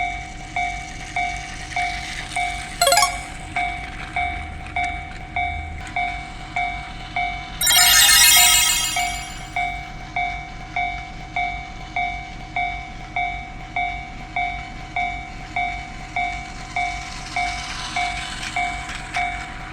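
Railroad crossing warning bell clanging steadily, about one and a half strikes a second. A train horn sounds once, for about two seconds, near the middle.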